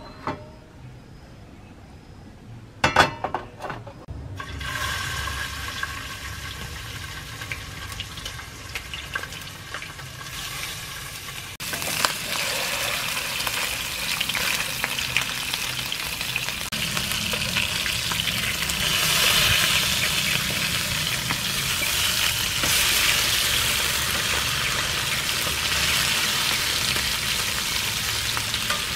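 Fish steaks sizzling and crackling as they fry in hot oil in a non-stick pan. The sizzle starts abruptly about a third of the way in and grows louder. Before it come a few sharp knocks and a faint hiss.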